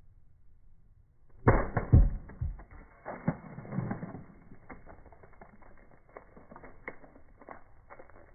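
A sledgehammer smashing a soda container: two heavy hits about a second and a half in, then a run of cracks and spatters that trails off into scattered small ticks and taps.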